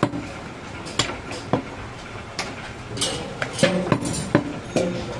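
A heavy butcher's knife chopping mutton and bone on a wooden chopping block: sharp, irregular chops, coming faster in the second half.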